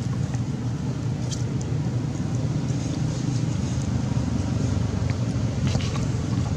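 Steady low rumbling noise, with a few faint short high ticks about a second and a half in and near the end.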